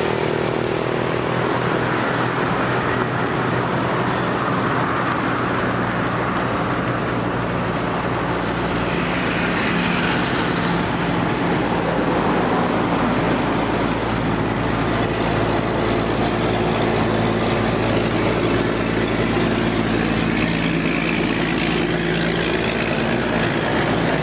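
Roadside traffic: motorcycles and heavy trucks passing, over a steady low engine drone, with a swell as a vehicle goes by about ten seconds in.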